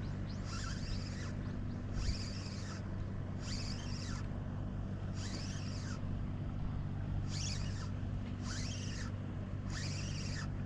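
A steady low engine hum, with a repeated high call that rises and falls about once every second and a half.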